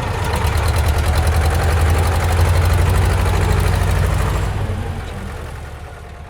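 Bulldozer's diesel engine running with a fast, rough pulsing throb, then fading away over the last two seconds.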